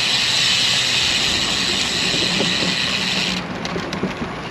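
Cervelo Caledonia road bike rolling at speed, with a steady rush of wind and tyre hiss. About three and a half seconds in the hiss drops away suddenly and a run of light knocks begins as the tyres go onto bumpy timber bridge decking.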